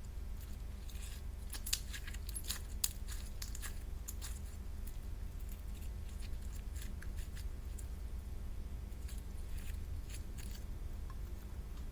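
Slime being handled: irregular small sticky clicks and crackles, more of them in the first few seconds, over a steady low hum.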